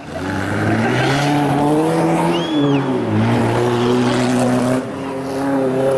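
Stock-car racing engines revving hard on a dirt track, their pitch rising and falling as the cars accelerate and lift through the bends. A brief high whine rises and falls about two and a half seconds in.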